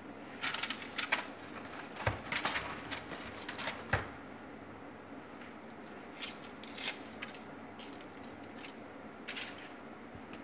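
Foil wrappers of cream-cheese portions crinkling in bursts as they are peeled open by hand, with two dull knocks on the steel counter about two and four seconds in.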